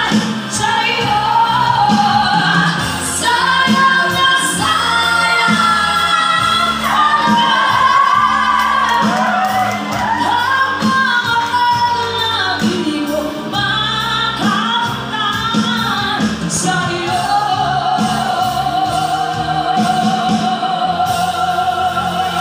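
Live band performing a song with female lead vocals, backed by electric guitars, sung through the PA. A long held note with vibrato runs through the last several seconds.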